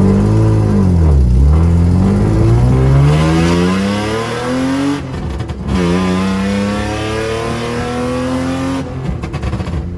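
BMW E36 328i's M52 inline-six accelerating hard through its straight-piped exhaust with a single 18-inch glass pack. After a quick rise and dip in the first second or so, the engine pitch climbs steadily, falls at an upshift a little after five seconds in, climbs again and falls at another shift near nine seconds.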